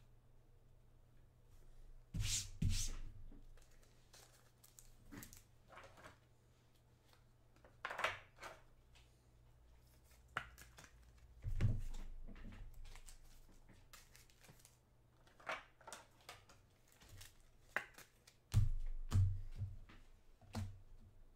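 Trading cards being handled at a table: scattered rustles, slides and taps of cards and plastic holders, with a few low thumps as things are set down.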